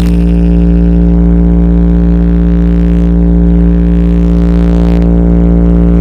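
A DJ sound system's speakers playing one loud, steady droning tone with many overtones, held without a break or beat.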